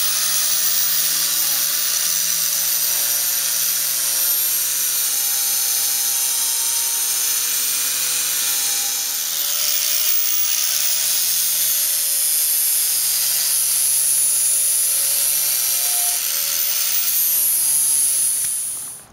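Angle grinder with a flap disc running steadily with a high whine, grinding a taper onto the end of a plastic snowmobile slider (Hyfax).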